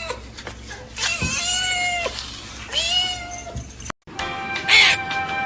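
A cat meowing: two long, drawn-out meows, each about a second long and falling in pitch at the end. Near the end the sound cuts to background music.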